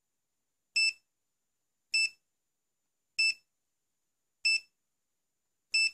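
Winapex 268B clamp meter's built-in buzzer giving five short, high beeps, evenly spaced about once every second and a quarter, as the display brightness is stepped up.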